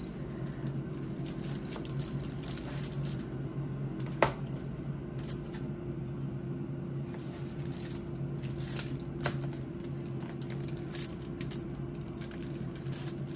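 Knife and fork clicking and scraping against a foil-lined pan while cutting apart cooked pork spare ribs, with a sharp knock about four seconds in and another around nine seconds. A steady low hum runs underneath.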